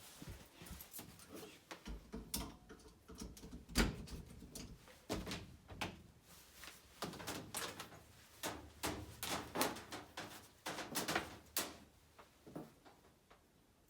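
Irregular clicks, knocks and rattles of hand work on plumbing fittings, with many sharp strokes at uneven intervals that stop a second or so before the end.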